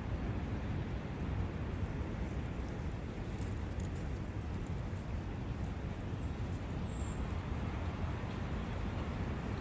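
Countryside ambience of a brook running in a forest: a steady, even rush weighted toward the low end, with a brief faint high chirp about seven seconds in.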